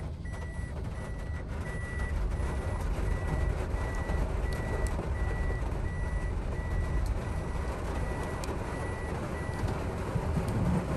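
A vehicle's electronic warning beep sounds at a steady, even rate inside the cabin over the low, steady rumble of the moving vehicle, and stops shortly before the end.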